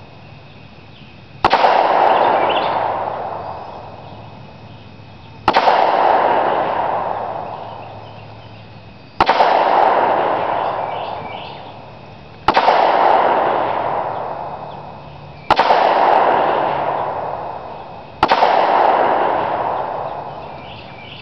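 Six single shots from a Kel-Tec PF-9 9mm semi-automatic pistol, spaced about three to four seconds apart. Each is a sharp crack followed by a long echo that fades over about three seconds.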